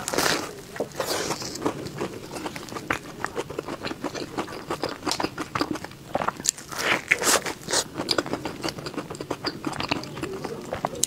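Close-miked biting and chewing of a sesame-crusted pumpkin pie: a crunchy bite right at the start, then continuous crackly chewing with another burst of loud crunching a little past halfway.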